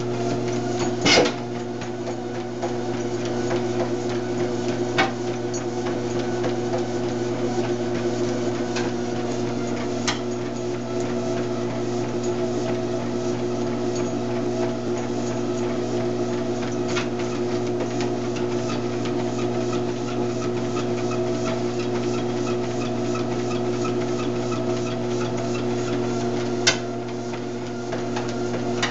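Motorized treadmill running with a steady hum while a German shepherd trots on the belt, its paws striking the deck in a quick, even rhythm. A few louder knocks stand out, the loudest about a second in.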